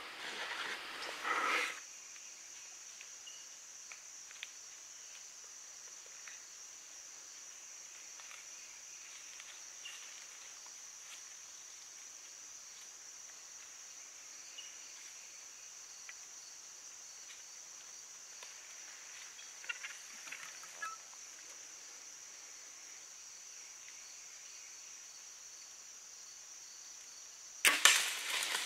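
Steady high-pitched drone of insects in summer woods, with a bow shot about a second before the end: a sudden sharp crack of string release and arrow hit, followed by crackling as the deer bolts through the leaves.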